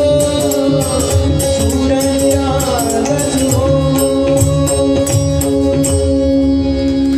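Live Indian devotional song accompaniment: tabla strokes under steady held instrumental notes, with a light metallic jingling keeping time and a sung note gliding through the middle.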